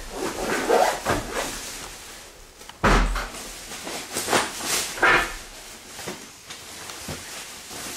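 Bags and belongings being handled, rustling and scraping, with one heavy thump about three seconds in.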